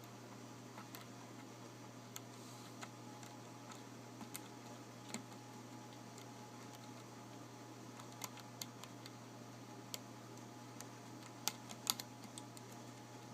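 Lock pick and tension wrench working inside the keyway of an old Yale pin tumbler padlock with spool (mushroom) pins: faint, irregular small metallic clicks as the pins are raked and lifted, with a few sharper clicks near the end, over a steady low hum.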